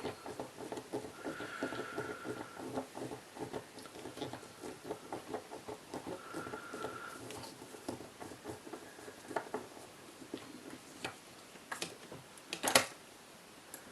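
Screwdriver work on the Loctite-locked screws of an airsoft rifle's hop-up chamber: fast small metallic clicks and scrapes with two brief high squeaks, thinning out later, then one sharp loud click near the end.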